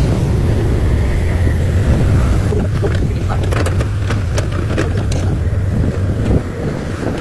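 Excavator's diesel engine running steadily under load. From about two and a half seconds in, a spatter of sharp clicks and knocks rides over it for a few seconds.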